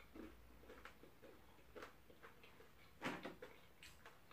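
A person chewing crisp fried yam: scattered soft crunches and wet mouth clicks, the loudest about three seconds in.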